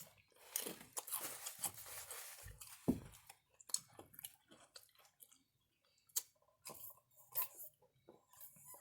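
Close-up chewing with wet mouth smacks and crunching: a person eating with her mouth open. It sounds as an irregular run of short smacks and clicks.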